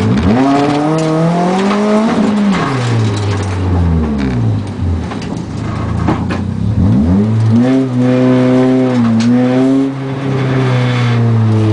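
Car engine heard from inside the car, revving hard through acceleration: the pitch climbs quickly, drops off as the driver lifts, then climbs again about seven seconds in and is held high before falling away near the end.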